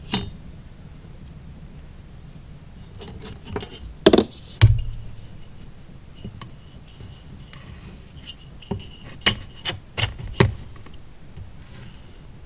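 Small pieces of cut stripwood and a ruler handled and set down on a workbench: scattered clicks and knocks, loudest a pair about four seconds in with a dull thump, then a quick cluster of taps near the end.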